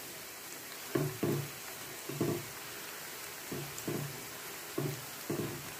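Hot oil sizzling steadily as batter-coated cauliflower pieces deep-fry in a pan, with a few short low knocks, some in pairs, as a slotted spoon stirs the pieces.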